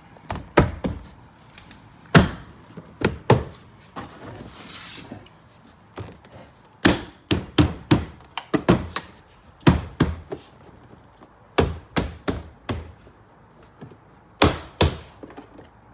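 Plastic interior door trim of a 2014 Nissan Pathfinder being pressed and tapped back into place: a string of irregular sharp knocks and snaps, in clusters of two to four, with a short pause near the middle.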